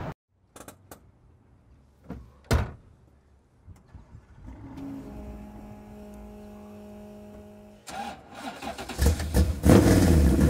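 A sharp knock and a few faint clicks, then a faint steady hum; about eight seconds in, the 1965 Mustang GT350 tribute's V8 (a Dart 351 block stroked to 460 cubic inches, on Weber carburettors) starts and runs loudly through its side-exit exhaust.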